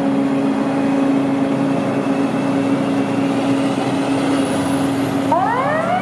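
Emergency vehicle sound: a heavy engine running with a steady hum, then a siren starts winding up about five seconds in.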